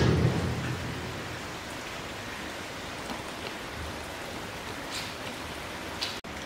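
Water spraying in the gorilla enclosure: a steady rain-like hiss, with a few faint ticks of drops or splashes about three, five and six seconds in.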